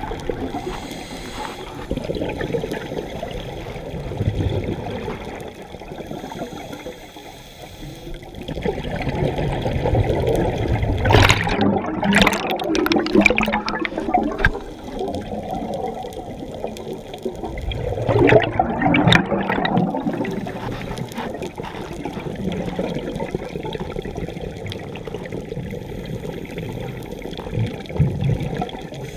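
Scuba diver's exhaled air bubbling out of the regulator over a constant underwater rushing. Two louder bursts of bubbles come through, one starting about eleven seconds in and lasting a few seconds, the other about eighteen seconds in.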